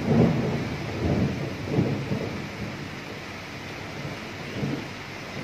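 Thunder rumbling in a string of low rolls that die away over a few seconds, with a last weaker roll near the end, over the steady hiss of rain.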